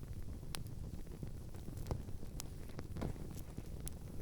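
Low wind rumble on the microphone, with a few faint, sharp clicks scattered through it.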